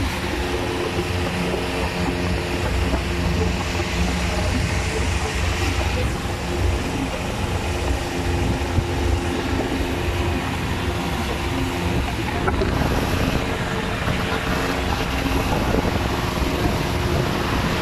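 Longtail boat engine running steadily under way, with a steady rush of wind and water.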